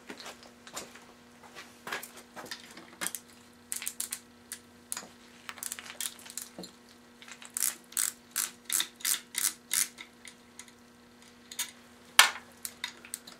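Hand ratchet clicking as screws are backed out of an oilless air compressor's pump, in short strokes that come about two to three a second in the middle, with one sharp clack near the end. A faint steady hum sits underneath.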